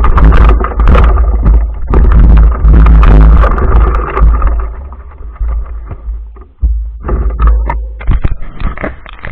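Vehicle riding over rough ground, heard through heavy wind rumble on the microphone. In the last two seconds it gives way to a run of sharp knocks and rattles.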